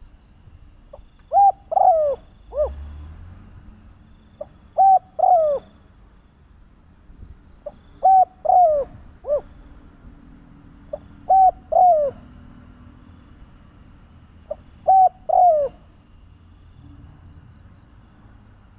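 Spotted dove cooing, a decoy bird's call used to lure wild doves: five repeated phrases about three and a half seconds apart, each a short note followed by three falling coos.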